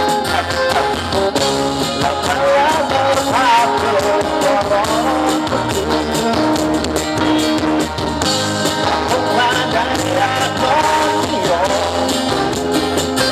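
Live band music with singing, a melody line bending in pitch over a full band accompaniment.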